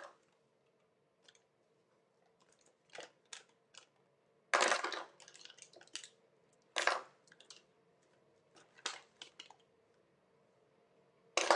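Scattered small clicks and brief rustles of makeup items being handled, about five short sounds spread over the stretch, with the longest, a rustle, about five seconds in.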